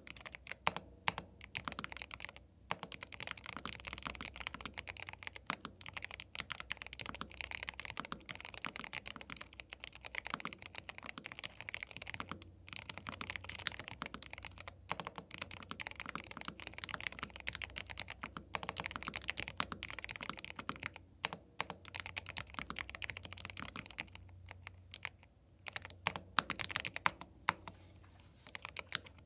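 Steady, fast typing on a YUNZII B75 Pro gasket-mount 75% mechanical keyboard with Milk linear switches: a dense run of keystroke clacks, broken by a few brief pauses.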